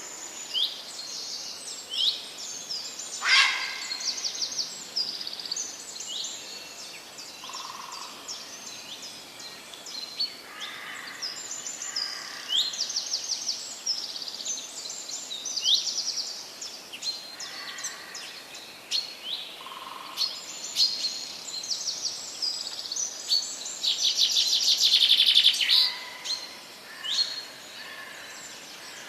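Wild birds singing and calling: many short, high chirps and trills from several birds, with a louder rapid trill lasting about two seconds near the end.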